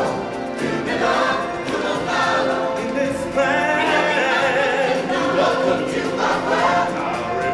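A group of singers singing together in chorus over backing music, a choral number in a live stage musical.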